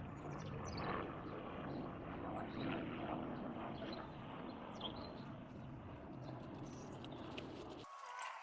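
Steady low outdoor rumble with faint bird chirps here and there; it cuts off abruptly near the end.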